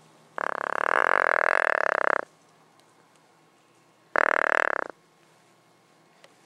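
A deer grunt call blown twice: a long grunt of nearly two seconds, then a shorter one about two seconds later.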